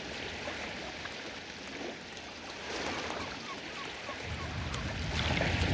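Shallow water washing over a sandy shore, a steady outdoor wash with some wind. A few faint, short chirps come about three seconds in, and a low rumble rises about four seconds in.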